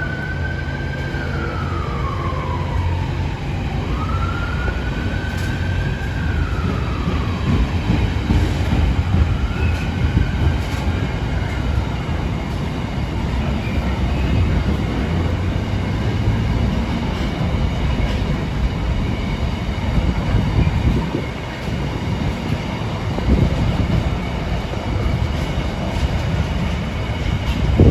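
Container freight train's wagons rolling past, a steady rumble of wheels on rail with occasional knocks. In the first ten seconds a wailing tone rises and falls three times, fainter each time.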